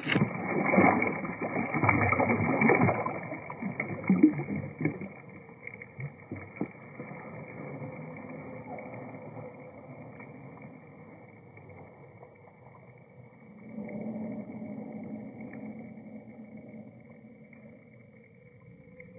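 Water splashing and sloshing as a big bass is let go and swims off, slowed down so that it sounds deep and drawn out. It is loudest in the first few seconds, then fades to faint gurgles and drips, with a low hum rising briefly around fourteen seconds in.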